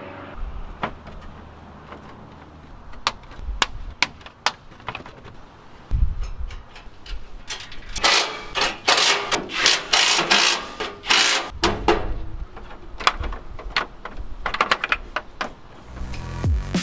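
Hands working on a ute's plastic front grille and winch cables: scattered clicks and knocks of plastic and metal being handled and fitted, with a busier stretch of scraping and rustling in the middle.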